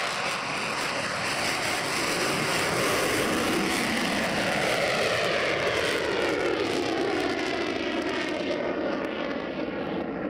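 Boeing F/A-18 Super Hornet's twin jet engines in afterburner on takeoff and climb-out: a steady, loud jet roar whose pitch slowly falls as the aircraft passes and climbs away, fading a little near the end.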